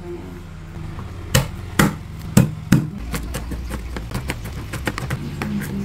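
Kitchen knife chopping on a bamboo cutting board: four sharp knocks about a second and a half in, then a run of quicker, lighter taps. A steady low hum runs underneath.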